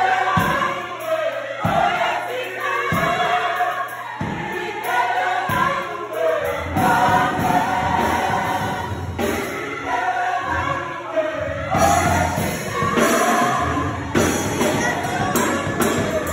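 A crowd and choir singing a gospel song together to keyboard accompaniment, with a steady beat about every second and a bit.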